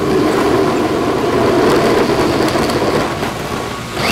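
Power drill spinning an adjustable hole saw against drywall or ceiling tile, a dense mechanical grinding. Near the end the drill gives a brief whine that rises and then falls.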